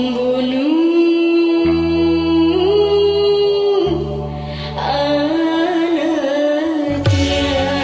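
Karaoke singing: a voice holding long sung notes that step up in pitch, over a backing track of sustained chords. A steady beat comes in near the end.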